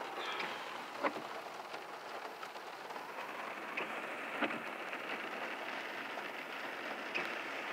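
Heavy rain falling as a steady hiss on surfaces, with a few louder single drop impacts about a second in, midway and near the end.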